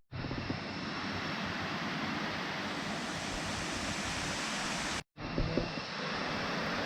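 Steady rushing of a waterfall, an even wash of falling water. It cuts out briefly about five seconds in, and a few faint knocks follow.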